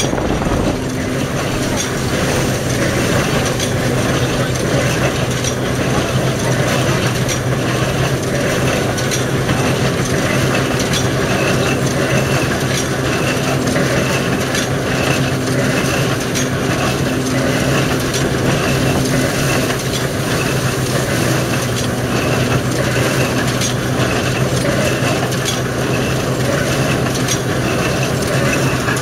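Ransomes threshing machine and Jones baler running together: a steady mechanical drone with a regular clatter. About a third of the way through, a repeating high squeak joins in, a little more than once a second.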